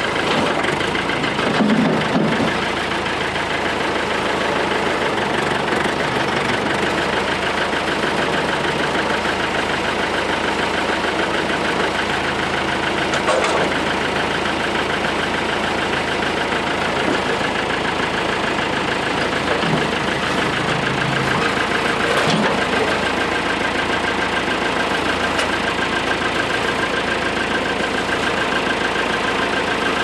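Farm tractor's engine running steadily at low speed while the tractor is inched back to a trailer hitch, with two brief knocks about halfway and two-thirds through.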